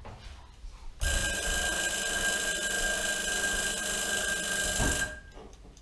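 A timer alarm ringing steadily for about four seconds, starting abruptly about a second in and cutting off near the end: the signal that the stew's remaining cooking time is up.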